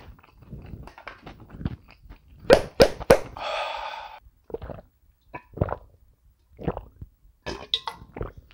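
Close-miked chewing and mouth sounds of a person eating, with three sharp clicks about two and a half to three seconds in and a short breathy exhale just after.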